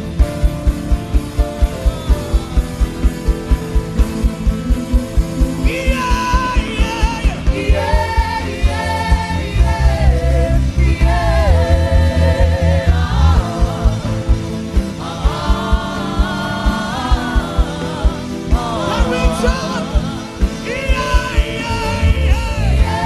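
Worship music: a man's voice humming and singing wavering, ornamented melody lines over gospel backing with a steady beat. The voice comes in about six seconds in.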